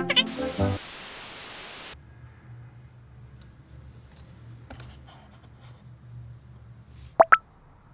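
A steady static-like hiss for about two seconds, then quiet room sound with faint handling of a small spiral desk calendar, and two sharp clicks close together near the end.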